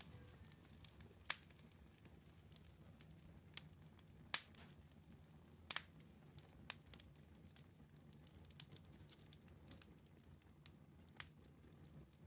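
Faint campfire crackling: a handful of sharp, irregular pops over a low, steady rumble.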